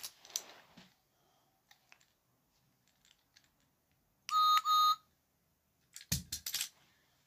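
Two short electronic beeps in quick succession about four seconds in, each a steady high tone and the loudest thing here. A few sharp knocks follow near the end.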